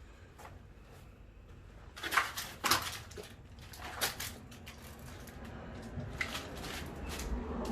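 A few scattered sharp crunches and knocks, the loudest two about two seconds in, over a low steady rumble.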